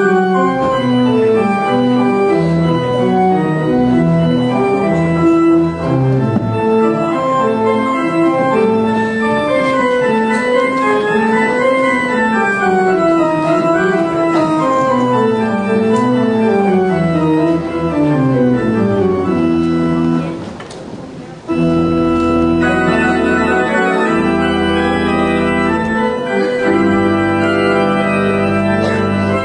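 Church organ playing a flowing melody over moving chords. After about twenty seconds it breaks off briefly, then comes back in with full held chords.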